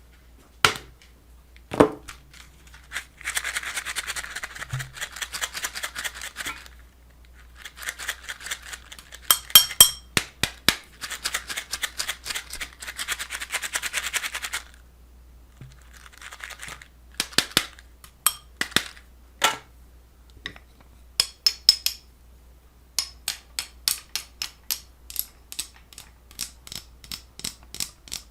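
A string of small household object sounds: a few sharp clicks, two long stretches of quick rhythmic scratchy strokes, then scattered clicks and a run of evenly spaced ticks near the end.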